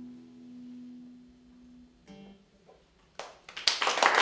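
The last note of a folk tune played on fiddle, harmonica and guitar rings out and fades over about two seconds, followed by a short plucked note. Then audience applause breaks out about three seconds in and quickly grows loud.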